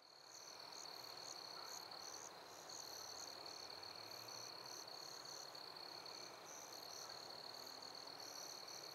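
Crickets and other night insects chirping: a steady high trill with irregular pulsed chirps above it over a faint outdoor hiss, fading in at the start.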